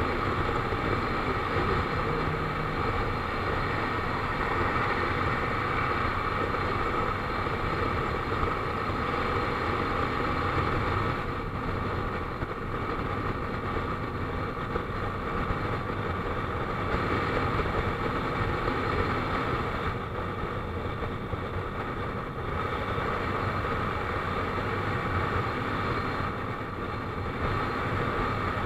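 Motorcycle cruising at steady highway speed: the engine running evenly under a constant rush of wind and road noise.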